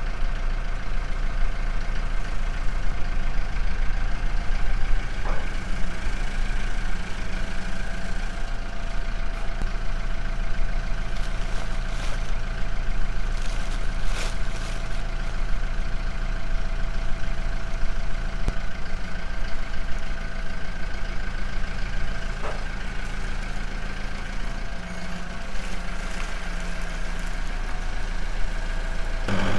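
Farm tractor engine running steadily at a constant speed, with a faint steady whine above it. A couple of sharp clicks come midway.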